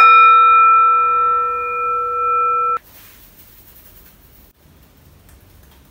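Metal singing bowl struck once with a mallet, ringing with several steady overtones that waver slowly in loudness. The ring cuts off suddenly after nearly three seconds.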